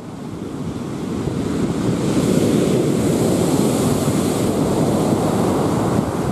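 Rough sea surf breaking on a sand beach, a steady rushing that fades in over the first two seconds.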